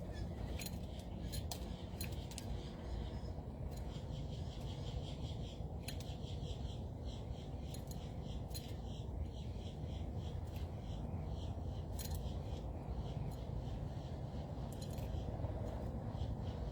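Small birds chirping in short, quick repeated notes, with sharp clicks here and there, over a steady low rumble.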